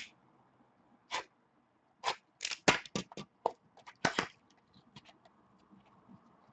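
Trading cards and a hard plastic card holder being handled on a table, with a utility knife set down: a run of sharp clicks and taps, bunched and loudest in the middle, thinning to faint ticks near the end.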